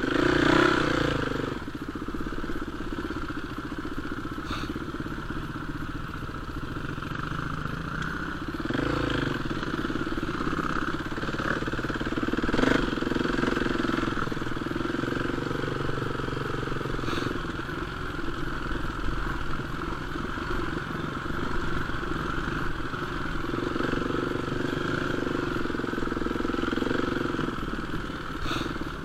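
Enduro dirt bike engine running as the bike is ridden, steady with louder stretches as the throttle is opened. A few sharp knocks and clatters come through.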